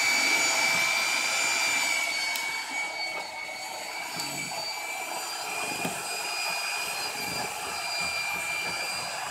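An electric motor-driven machine running steadily, with a high-pitched whine over a rushing noise that eases slightly about three seconds in.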